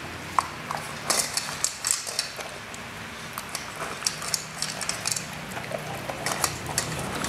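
A small pet eating, an irregular run of crisp clicks and crunches, several a second, against a faint hiss.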